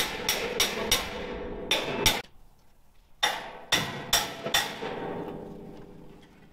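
Hammer blows on a dump truck's steel tailgate: a quick run of about six strikes, a pause of about a second, then a second run of about five, with the steel ringing on after each run.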